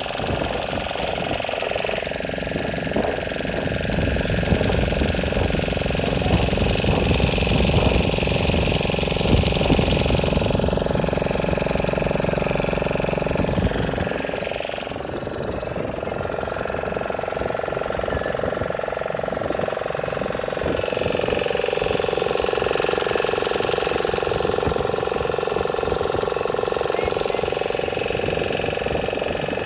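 A motorboat engine running steadily; its low rumble thins out about fourteen seconds in.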